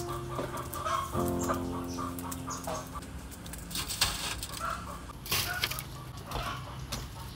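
Chickens clucking over soft background music, with the gritty rub of coarse salt being worked onto whole fish. There is a sharp knock about four seconds in as a fish is set down on a steel tray.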